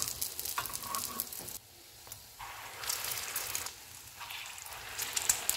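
Hot oil sizzling and crackling on a flat tawa as egg-dipped kababs shallow-fry. The sizzle drops away briefly about two seconds in, then comes back louder as a fresh egg-coated patty is laid into the oil.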